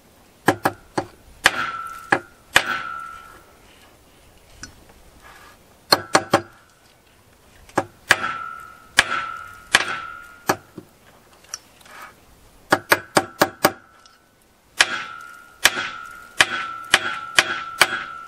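Hammer striking chainsaw-chain rivets on an anvil, peening them over to join an added drive link: sharp metallic taps in bursts of a few strikes with pauses between, many leaving a short ring.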